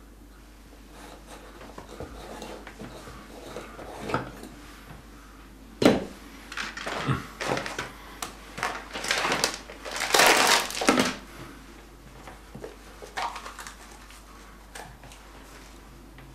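Knife work on a red bell pepper on a wooden chopping board: soft cuts and handling, a sharp knock about six seconds in, then a run of rustling and crinkling, loudest about ten seconds in, as a clear plastic tub is handled, and a few small clicks near the end.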